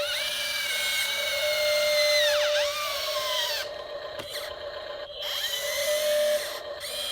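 Small electric motors of a radio-controlled construction model whining, their pitch sliding down and up as the machine changes speed, over a steady high hum.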